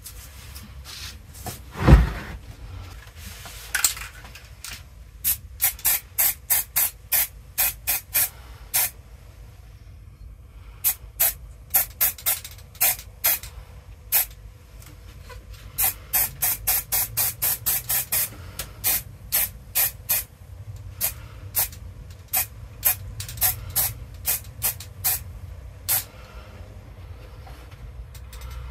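Aerosol spray paint can fired in many short hissing bursts, two or three a second, in runs with brief pauses. A single heavy thump about two seconds in is the loudest sound.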